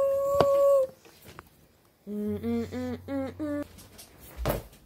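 A voice holding one long hummed note that stops just under a second in, with a sharp click partway through it. After a pause, about six short hummed notes step upward in pitch, followed by a brief breathy burst near the end.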